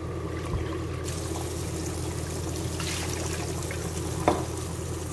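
Tap water running in a steady stream onto cooked spaghetti in a metal colander in a sink, rinsing the noodles. A single short knock about four seconds in.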